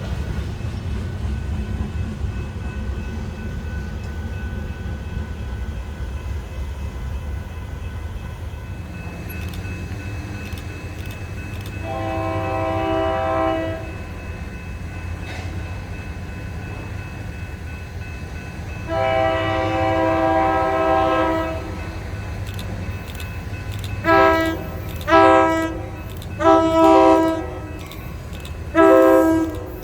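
A train's steady low rumble, with a locomotive's multi-tone air horn sounding two long blasts followed by four shorter ones near the end.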